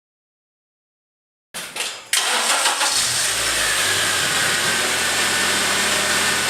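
Silence, then the Acura TSX's engine starts about two seconds in and settles into a steady run, with a low hum under a loud hiss.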